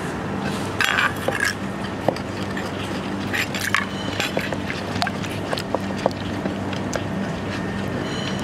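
Wooden pestle pounding a wet chilli-and-tomato mixture in a clay mortar: irregular dull knocks and wet squelches, with a couple of brief scraping sounds about a second in and again between three and four seconds. A steady low hum runs underneath.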